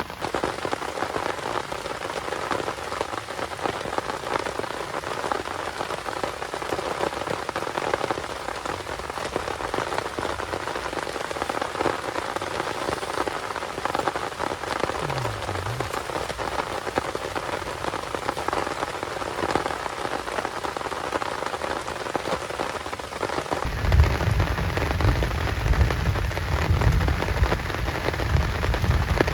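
Heavy rain falling steadily on a surface, an even patter. About 24 seconds in, a deep low rumble joins it and the overall sound grows a little louder.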